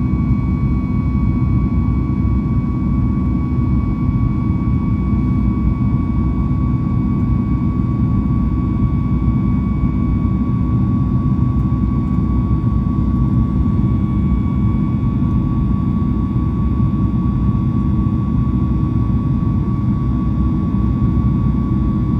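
Jet engines of a Boeing 737 MAX 8 (CFM LEAP-1B turbofans) running steadily at high power: a loud, even low rumble with a steady high whine from the fans, unchanging throughout, typical of the climb after takeoff.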